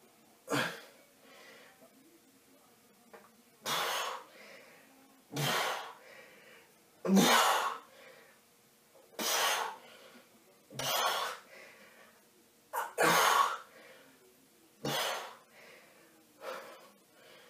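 A man's hard, sharp breaths, one with each abdominal crunch, coming roughly every two seconds.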